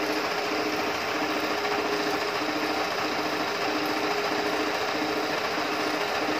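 Janome 5000 sewing machine running steadily, stitching.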